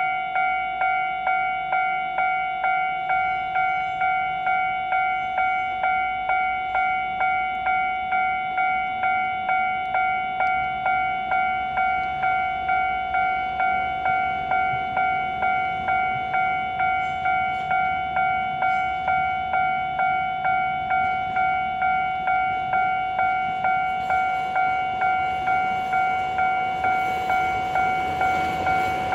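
Japanese railway level-crossing alarm ringing in a steady rhythm of about two strikes a second. Near the end a train's running noise grows louder as it nears the crossing.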